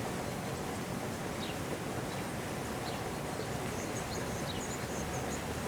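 Steady rush of a small waterfall, with a few short, high bird chirps over it, more of them in the second half.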